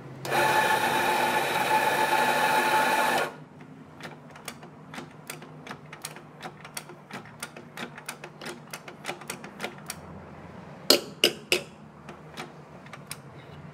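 Anfim espresso grinder motor running for about three seconds, then a long run of quick, even clicks, about three a second, typical of a doser lever being flicked to drop grounds into the portafilter. Near the end come three louder knocks, then a few more clicks.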